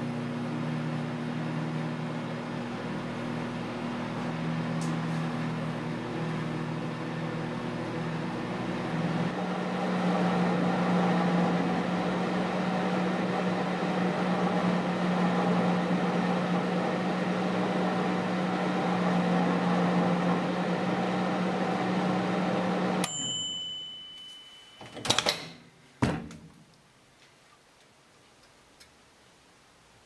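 1984 Amana Radarange MT-10 microwave oven running with a steady hum and fan noise; the hum's pitch settles about a third of the way in. Near the end it shuts off with a short ding of the timer bell, followed by two sharp clacks as the door is opened.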